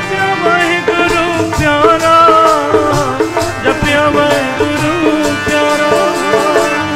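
Sikh devotional kirtan music in a gap between sung lines of the refrain: a wavering melody line over tabla strokes.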